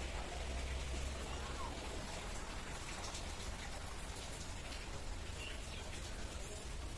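Steady rain-like hiss of water falling and spattering, with a low rumble underneath.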